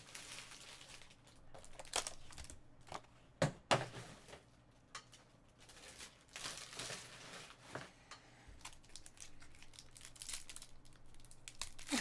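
Foil-wrapped trading card pack crinkling and tearing as it is handled and pulled open, in irregular rustles. The sharpest come about two and three and a half seconds in, with a longer crinkle a little past the middle.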